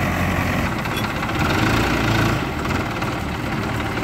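Diesel engines running: an old JCB 3DX backhoe loader working its arm and bucket beside an idling New Holland 4010 tractor. The sound swells for a moment about halfway through, then settles back to a steady hum.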